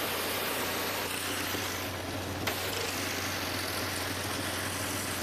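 Pressure-washer spray hissing against a pickup's fender and mud-packed wheel well, over the steady drone of an engine running. The hiss thins briefly about two seconds in, and there is a single sharp click.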